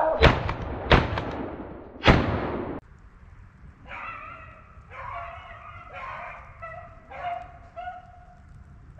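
Shotgun fired in the first two seconds, loud sharp shots with a trailing echo, then after a sudden drop, rabbit-hunting dogs baying in a string of repeated, drawn-out calls.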